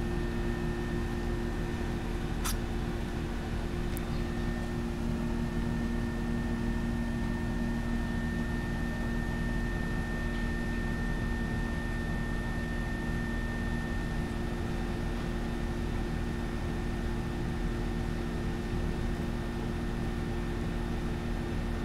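A steady mechanical hum with background hiss, holding a few constant tones, and two faint clicks about two and a half and four seconds in.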